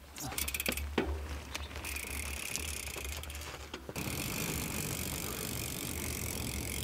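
Mountain bike rolling along a dusty dirt track: tyre and riding noise, with a few sharp clicks in the first two seconds. The rolling noise gets louder about four seconds in and stays steady.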